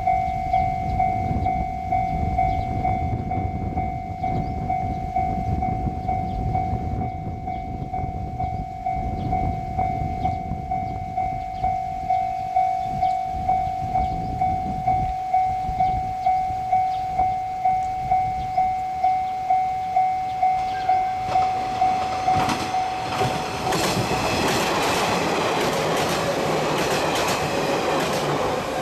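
Electronic level-crossing warning bell ringing in a steady repeating ding, just under two strokes a second, over the low rumble of a passing train. About 23 seconds in a train passes close, its wheels clacking over rail joints and drowning out the bell.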